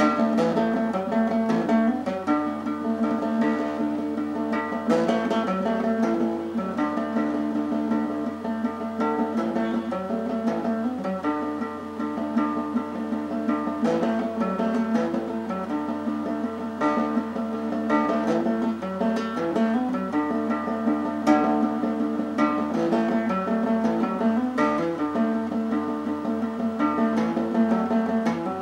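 Music on a plucked string instrument: a run of picked notes over sustained, ringing tones.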